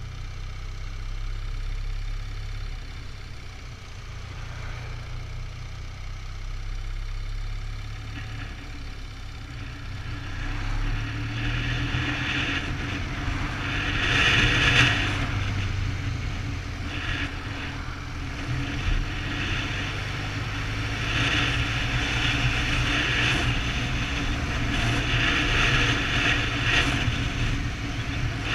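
BMW touring motorcycle riding at highway speed: a steady low engine and road rumble under a rush of wind noise that grows louder about a third of the way in and swells several times.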